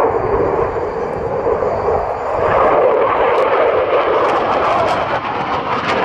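JAS 39 Gripen fighter jet flying a display pass, its single Volvo RM12 turbofan engine making a loud, steady rushing noise that swells and brightens about halfway through.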